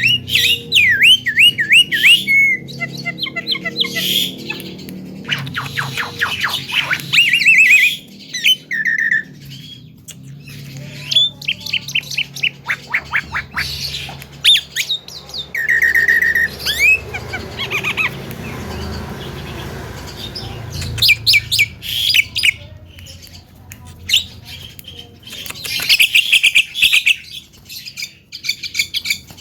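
Javan myna (jalak kebo) calling: a varied string of whistles, chirps and harsh squawks, several in fast rattling runs of quick sweeping notes, with a held whistle about halfway through.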